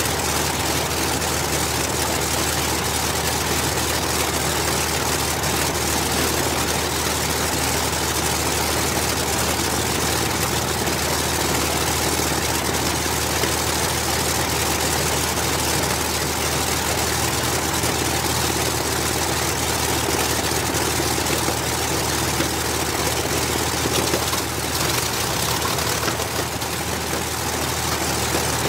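Rolls-Royce Merlin V-12 aero engine on a de Havilland Mosquito running steadily at idle with its propeller turning. About 25 seconds in the sound dips briefly and changes as the second Merlin is started.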